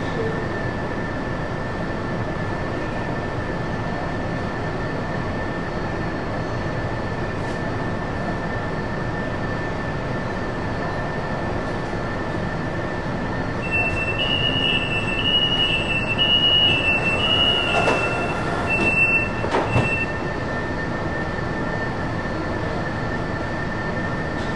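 Fuzhou Metro Line 4 B-type train standing at a platform: a steady hum with a thin high whine from its running equipment. About 14 seconds in, a door-closing warning beeps in quick pulses for about six seconds, with two thumps near its end as the doors shut.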